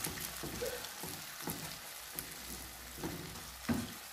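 Red kidney beans and minced meat sizzling in a frying pan while a wooden spatula stirs them, knocking and scraping against the pan several times.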